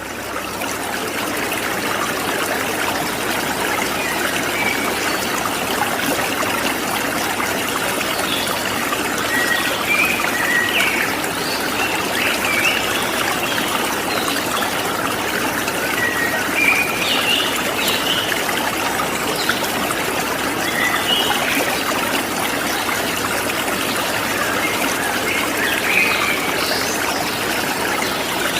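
Steady rush of running water, with short high chirps now and then.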